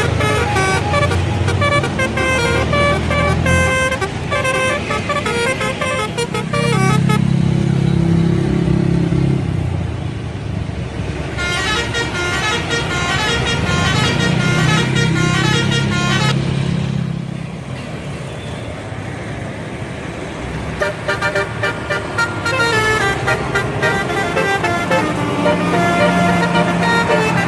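Bus 'telolet' musical horns playing quick tunes of short stepped notes, in three bursts: at the start, about halfway and near the end. A bus engine's low drone fills the gaps between them.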